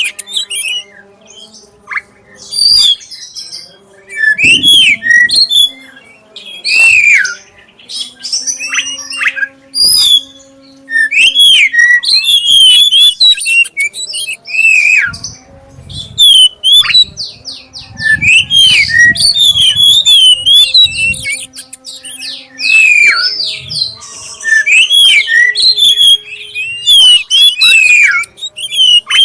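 Black-chested Oriental magpie-robin (kacer dada hitam) singing loud, clear phrases of sliding whistles and quick chattering trills, in bursts separated by short pauses, with a fast run of rapidly repeated notes a little past the middle.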